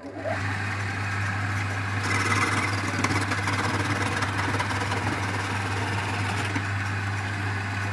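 Electric wood lathe starting abruptly and running with a steady hum, with the hiss and scrape of chisels cutting the spinning wooden spindle, brighter between about two and six and a half seconds in.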